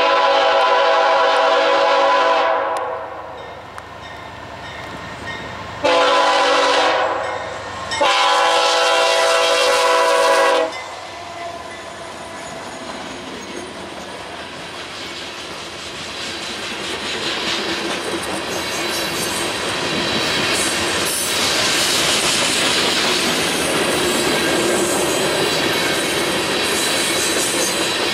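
A freight locomotive's air horn sounds a chord of several notes at once, a funky-sounding horn, in three blasts: long, short, then long. Then the westbound mixed freight rolls past, its wheels rumbling and clicking over the rail joints and growing louder toward the end.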